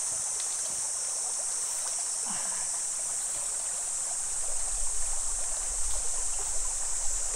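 Shallow creek babbling over rocks, a steady water hiss. A brief low voice sound comes about two seconds in, and an uneven low rumble joins from about four seconds in.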